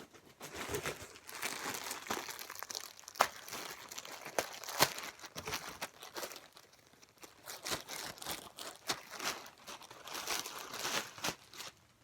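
Packaging being crinkled and pulled open by hand while unwrapping an item, in irregular crackles with a short lull about halfway through.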